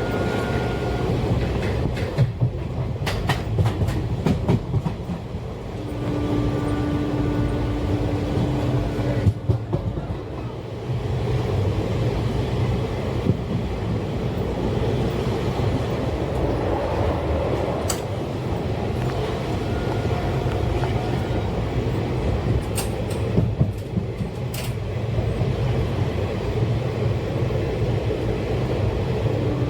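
Passenger train running along the track, heard from on board: a steady rolling rumble with sharp clicks of the wheels over rail joints, several in the first few seconds and another cluster near the end.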